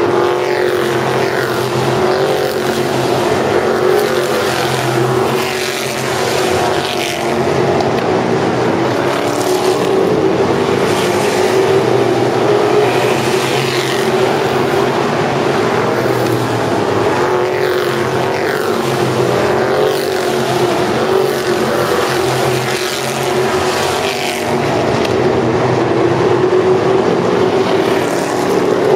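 Pack of asphalt modified race cars at racing speed: loud, continuous engine noise, with falling pitch sweeps again and again as cars pass close by.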